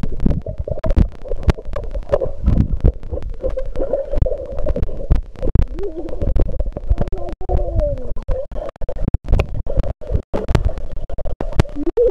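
Underwater sound in a swimming pool, heard by a submerged camera: a muffled low rumble of moving water with many knocks and clicks, and bubbles from a swimmer blowing out underwater. A muffled wavering tone rises and falls about two thirds of the way through.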